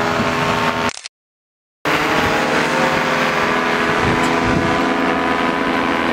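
Paramotor engines droning steadily overhead with a buzzing, even tone. The sound cuts out completely for about a second near the start, then resumes.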